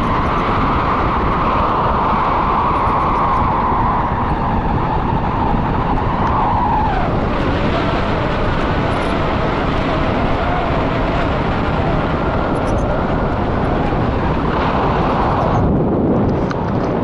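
Strong wind rushing over an action camera's microphone on a selfie stick in paraglider flight, a steady loud roar with a whistle-like tone that drops in pitch about halfway through. The noise changes abruptly near the end.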